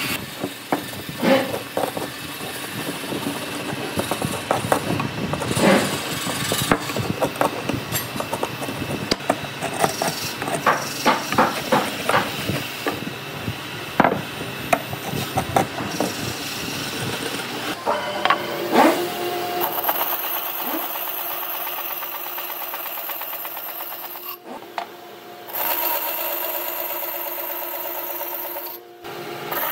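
A hammer knocking on wooden boards in irregular strikes for most of the first twenty seconds. Then a bandsaw runs with a steady high whine as a board is fed through it, cutting out briefly twice.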